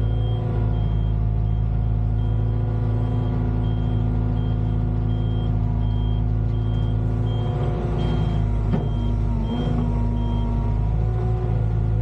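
Volvo EWR150E wheeled excavator's diesel engine running steadily, with a high electronic alarm beeping about one and a half times a second that stops near the end. About two-thirds of the way in there are a few knocks and a brief falling whine.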